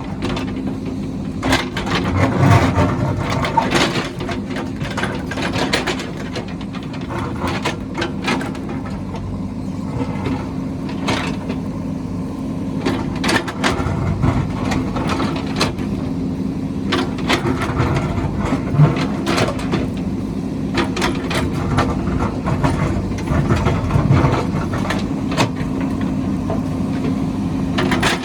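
JCB backhoe loader's diesel engine running steadily under digging load, with many irregular knocks and cracks from the bucket working into the hillside's soil and rock.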